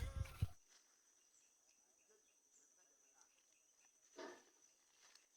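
Near silence after a louder sound cuts off about half a second in, leaving faint outdoor insect chirping over a steady high faint whine; a short faint voice-like sound comes about four seconds in.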